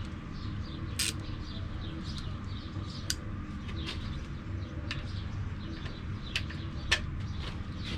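Scissor jack being cranked against an outboard's power trim ram to force the ram off: a few sharp metallic clicks and squeaks over a low steady hum, with short faint chirps throughout.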